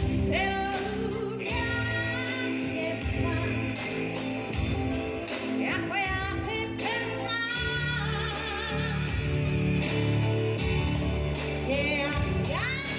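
Pop-rock band music with a steady drum beat and a woman singing held notes with vibrato.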